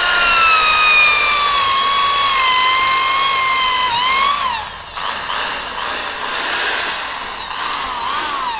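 Bosch GSB 550 corded drill's motor whining as a 12 mm wood bit bores into thick teak. Its pitch sags slowly under load for about four seconds, then rises and falls repeatedly.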